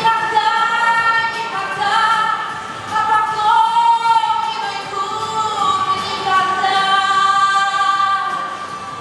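Female voices singing a wordless melody in long held notes that glide slowly up and down.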